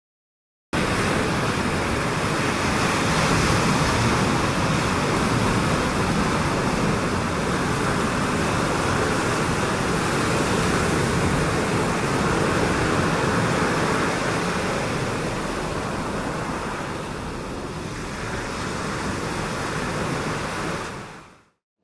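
Steady rush of sea surf churning and washing through shallow water. It starts abruptly after a brief silence and fades out near the end.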